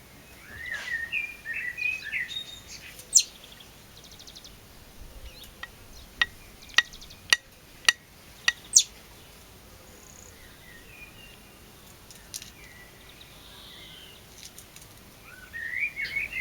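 Songbird calls: a short warbling phrase near the start and again near the end. Between them comes an uneven run of about seven sharp clicks.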